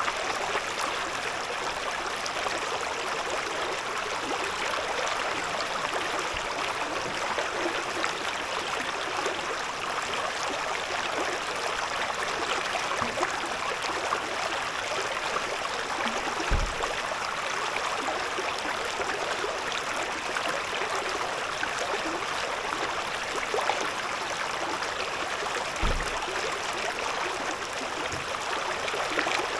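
Shallow river babbling and rushing steadily over stones, with a couple of brief low thuds about a third of the way in and near the end.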